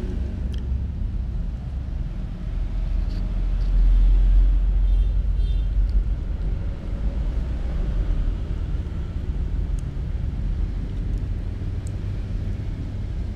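A steady low rumble, swelling about four seconds in, with a few faint clicks from two kittens eating at close range.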